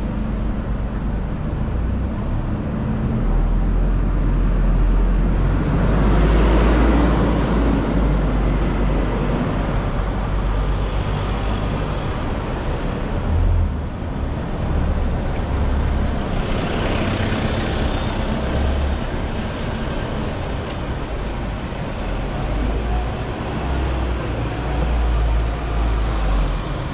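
Road traffic on a city high street: a steady rumble of engines and tyres, with vehicles passing close by about six seconds in and again about seventeen seconds in.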